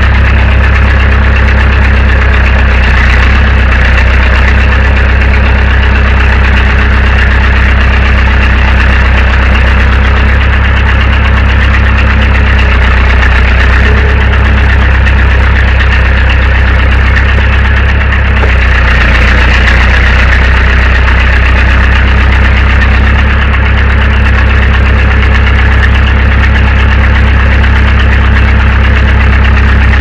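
Case 580 backhoe's engine idling steadily and loudly.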